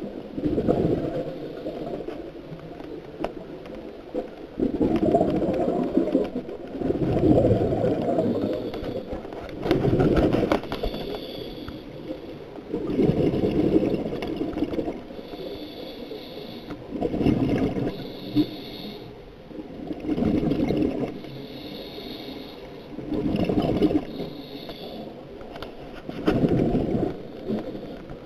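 Scuba regulator breathing underwater: a bubbling rumble on each exhale, about every three seconds, alternating with a thinner hiss on each inhale.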